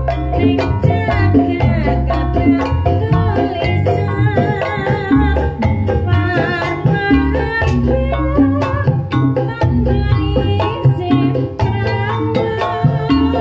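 Banyumas ebeg music: a percussion-led band with steady drum strokes and a voice singing the melody.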